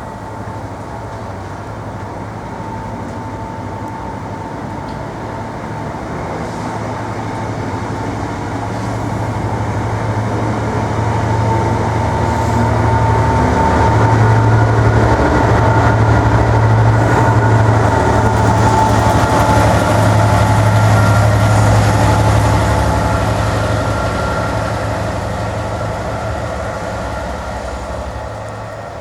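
Diesel-hauled passenger train of Class 67 locomotive 67018 and Mark 3 coaches passing through the station: a deep diesel engine hum with a few steady higher tones grows louder, peaks about halfway, then fades away.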